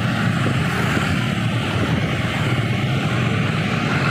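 Bus engine and road noise: a steady low rumble with a broad hiss over it, and no horn tones.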